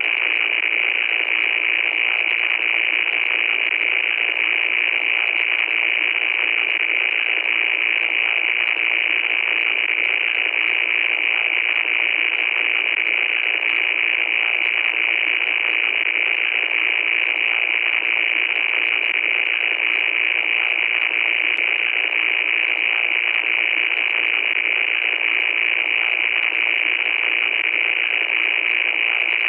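Loud, steady static noise: an unbroken hiss cut off at the low and high ends like sound through a radio or phone line, brightest in the upper mids, with faint crackling ticks on top.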